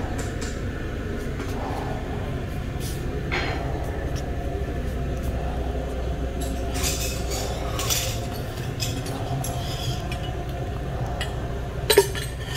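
Steady low drone of a running machine, with a few faint clicks and a sharper knock near the end.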